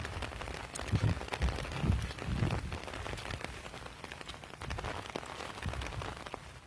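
Footsteps at a walking pace, soft thuds about twice a second, under a light scattered patter of falling water drops.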